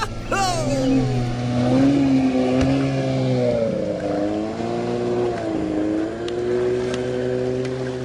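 Toy boat's small motor running with a steady hum. Its pitch falls right at the start, then wavers gently up and down.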